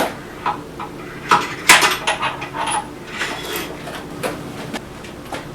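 Metal clinks and taps, about a dozen irregular strikes with a short ring, the loudest a bit under two seconds in: a steel knockout rod knocking the spur drive center out of the lathe's headstock spindle.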